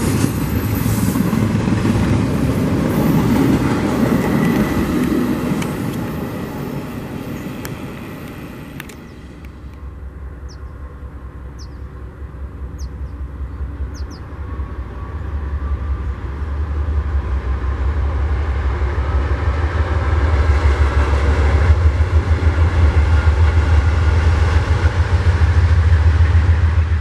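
Freight train passing. First a double-stack container train rolls by close up with loud rolling wheel noise. After about nine seconds the sound drops away, and a second freight train of covered hopper cars rumbles past, its low rumble growing steadily louder toward the end.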